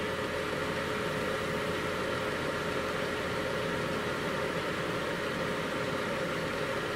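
Steady fan whirr with a constant hum held at one pitch: a 1500-watt ceramic heater running on high, a heavy load drawn from the inverter.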